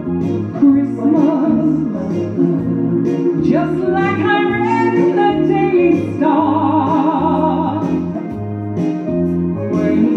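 A woman singing over a backing track with a steady bass line, holding long notes with vibrato in the middle.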